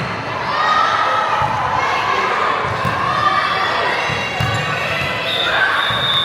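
Volleyball being hit and bouncing in a gym, with thuds among young players and spectators shouting and cheering, and a steady high tone, likely a referee's whistle, near the end.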